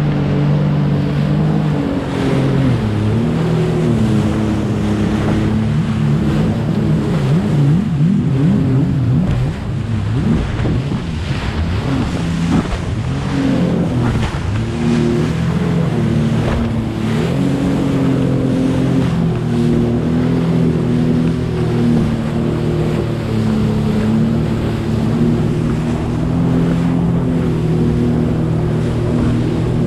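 Sea-Doo Fish Pro personal watercraft engine running at speed through waves. Its pitch rises and falls with the throttle, most unsteadily between about 8 and 14 seconds in, over water rushing and splashing against the hull.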